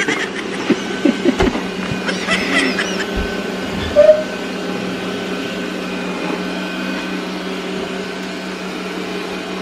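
Roborock S5 Max robot vacuum running with a steady motor hum. A short, sharp sound stands out about four seconds in.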